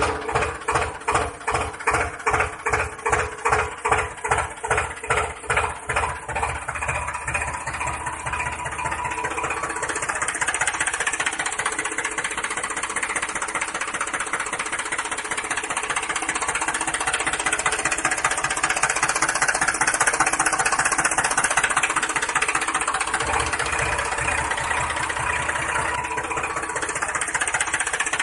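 Diesel tractor engine knocking in slow, even beats of about two a second, then picking up to a fast, steady run after about eight seconds.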